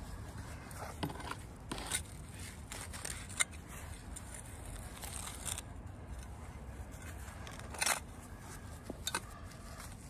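Small hand tool scraping and poking in soil, with scattered short scrapes and clicks, the longest about eight seconds in, as potatoes are dug out of the bed.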